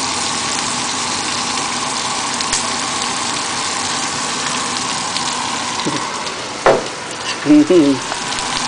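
Shrimp frying in oil in a small pan, a steady sizzle, with a few short louder sounds near the end.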